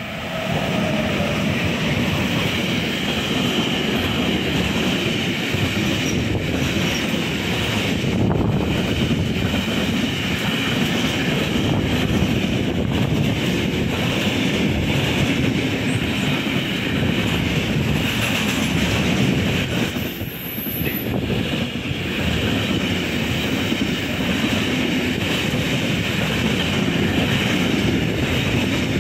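Freight train passing close by at speed: two DB class 185 electric locomotives come through first, then a long run of container and tank wagons rolls past with steady wheel-on-rail noise and clickety-clack over the rail joints. The sound comes up sharply at the start and stays loud and even throughout.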